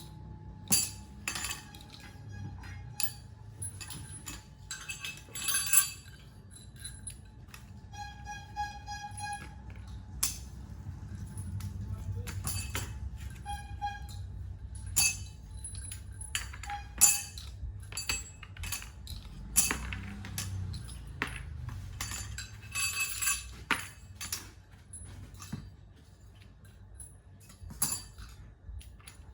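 Metal parts of a meat slicer clinking and clattering as they are handled and fitted while the slice thickness is set, with a brief ringing metallic tone about eight seconds in and a low hum underneath.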